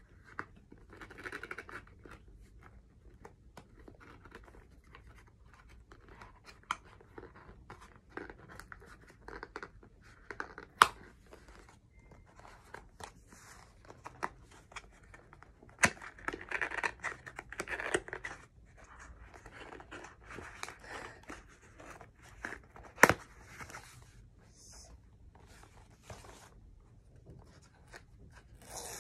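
The packaging of an iPhone 14 Pro Max box is handled and torn open: wrapping tears, paper and cardboard rustle and scrape, and there are scattered sharp clicks and taps. Two louder clicks stand out, one near the middle and one about two-thirds of the way through.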